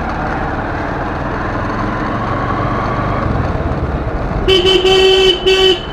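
Motorcycle running at low speed with a steady engine and road rumble. About four and a half seconds in, a horn honks loudly for over a second, briefly broken near the end.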